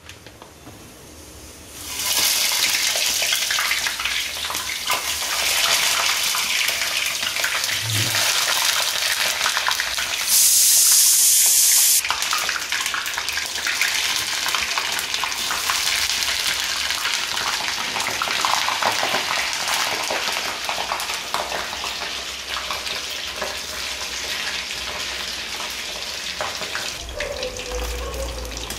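Breaded chicken nuggets deep-frying in hot oil in a stainless steel pan: a loud sizzling and bubbling starts suddenly about two seconds in as they go into the oil, with a louder hissing stretch around ten to twelve seconds in. Near the end they are stirred with a slotted spoon.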